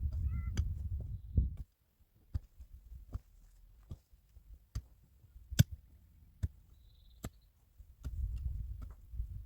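Scattered sharp knocks and clicks, one louder knock about halfway through, with a low rumble at the start and again near the end.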